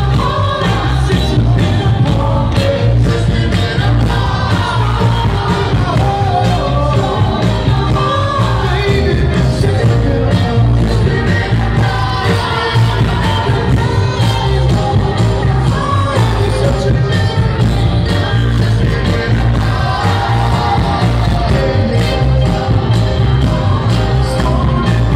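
Live Philly soul music: a male vocal group singing in harmony over a backing band with electric guitar and drums, with a heavy bass and a steady beat, heard from within the audience.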